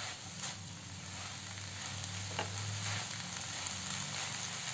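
Sprouted moth beans (matki) sizzling steadily in a frying pan as they are stirred with a spatula, with a couple of soft scrapes.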